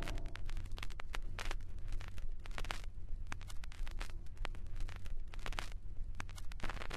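Dense, irregular crackling and clicking over a low, steady rumble.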